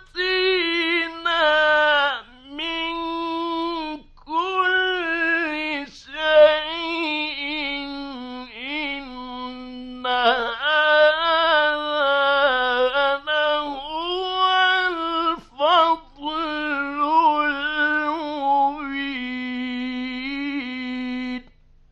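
A man's solo voice chanting Quran recitation in the melodic mujawwad style: long, ornamented held phrases with wavering pitch, broken by short gaps, the pitch settling lower near the end.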